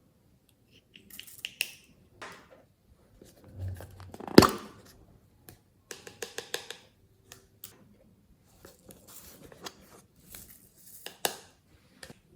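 Hands kneading and stretching glossy slime: sticky clicks and crackles at irregular intervals, with one sharp pop about four and a half seconds in.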